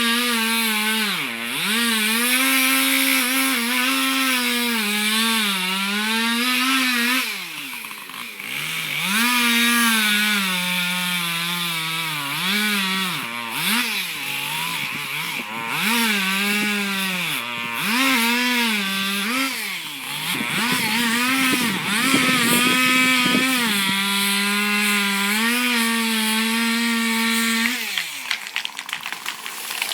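Chainsaw running at high revs through a long cut. Its engine note dips again and again as the chain bogs in the wood, then climbs back between bites. Near the end the engine winds down.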